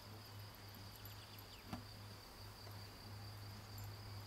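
Faint, steady chirring of crickets in a summer meadow, with a low hum underneath and a single sharp click a little under two seconds in.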